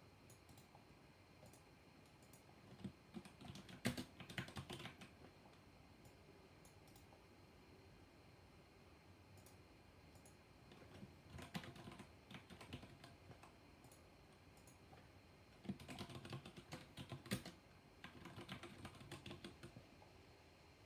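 Mechanical keyboard with black linear switches being typed on in three quick bursts of keystrokes, with short pauses in between.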